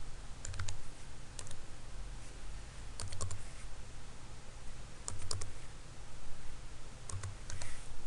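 Keys clicking on a computer keyboard as a number is typed, in five short runs of two to four quick keystrokes spaced a second or two apart.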